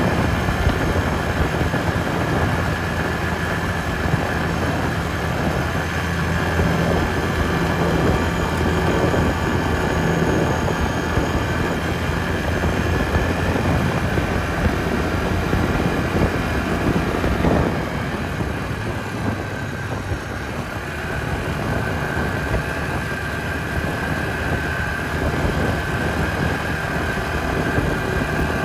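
Yamaha Grizzly 450 ATV's single-cylinder four-stroke engine running steadily under way. It eases off a little over halfway through, then picks up again.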